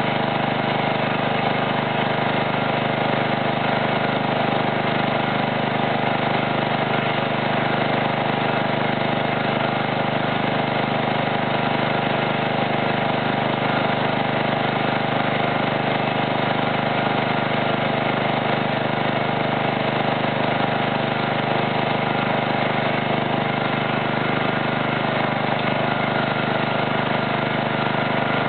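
John Deere riding lawn mower's engine running steadily at an unchanging speed, with no shots.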